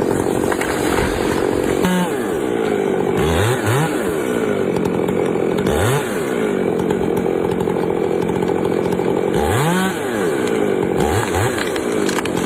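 Chainsaw engine running steadily at high speed, with its pitch sweeping up quickly several times as the throttle is opened, typical of a saw working through a tree.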